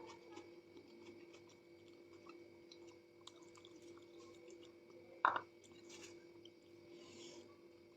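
Faint chewing and wet mouth sounds of a person eating, with one sharper, louder click about five seconds in, over a steady faint hum.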